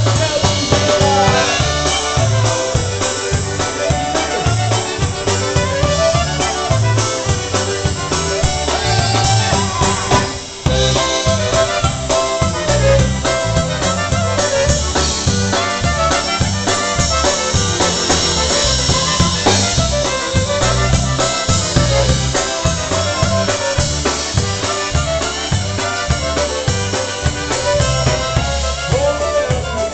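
Live polka band playing an instrumental stretch: a squeezebox carries the melody over a drum kit and a steady low bass beat. The music breaks for a moment about ten seconds in.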